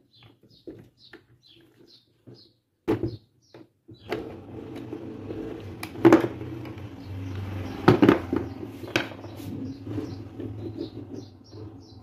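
Knocks and clicks of metal parts and a screwdriver as a dismantled electric fan motor is worked on, with sharp knocks about six, eight and nine seconds in. A low steady hum comes in about four seconds in. Faint high chirps repeat a few times a second at the start.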